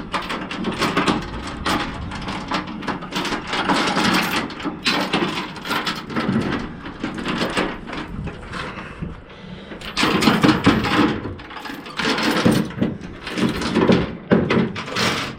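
Steel load-securement chain clanking and rattling, with repeated metal clicks and knocks, as it is pulled and set into a snap binder.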